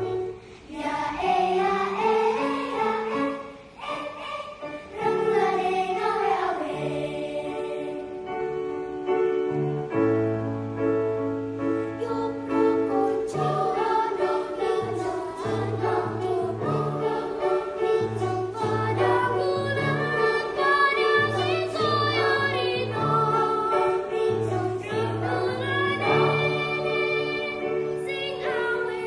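A choir singing in several parts, with sustained chords over a low voice line that moves in held notes.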